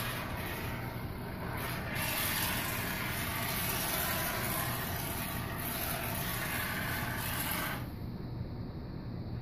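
Aerosol can of Great Stuff black expanding spray foam hissing as foam is pushed out through its straw nozzle. It is one spell with a brief dip about two seconds in, then a long steady spray that cuts off at about eight seconds, over a steady low hum.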